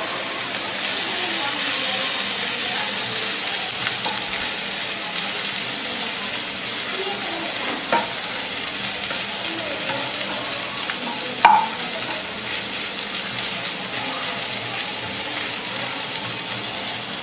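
Sliced bitter gourd with onion and green chillies frying in a pan, a steady sizzle as it is stirred. A few short sharp knocks of the stirring utensil against the pan, the loudest about eleven and a half seconds in.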